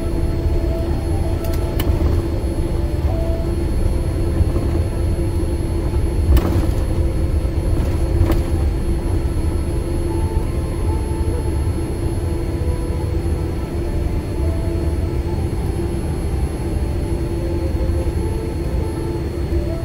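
Cabin noise of a Boeing 787-9 on the ground after landing: a steady low rumble with a steady hum, and a few faint clicks about two, six and eight seconds in.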